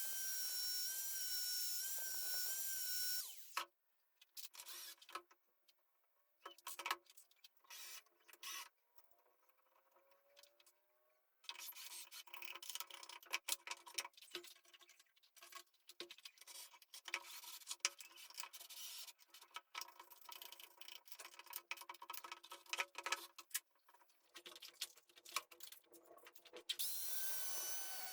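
A small handheld power tool's motor runs with a steady high whine for about three seconds, stops, and starts again near the end. In between come many sharp clicks, knocks and scraping sounds of hand work on the parts.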